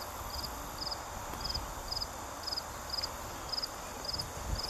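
An insect chirping in a steady rhythm, about two short high chirps a second, each a quick train of pulses, over a low rumble of wind.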